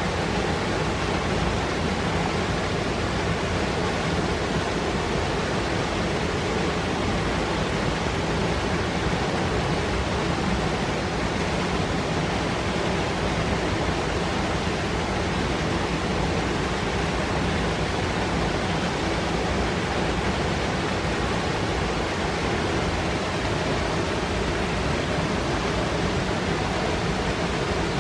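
Fast mountain river rushing over rocks in a gorge: a steady, dense white-water noise with no breaks.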